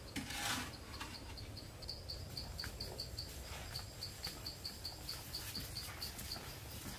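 Insect chirping in a steady rhythm of short high pulses, about six or seven a second, from about two seconds in. A short scuffing rustle comes near the start, and faint footstep-like clicks are scattered through.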